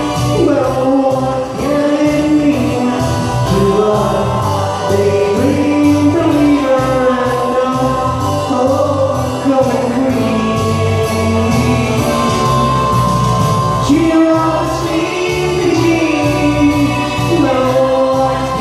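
A man singing into a microphone over a backing track with a steady beat.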